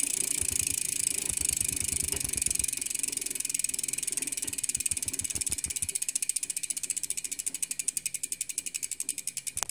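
Unmodified Quando cassette rear bicycle hub freewheeling, its freehub pawls ticking in a fast buzz. The clicks slow steadily through the second half as the wheel spins down.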